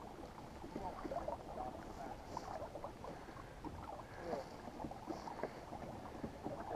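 Water gurgling and lapping against the hull of a kayak moving along at trolling pace, with many small irregular gurgles and an occasional brief splash.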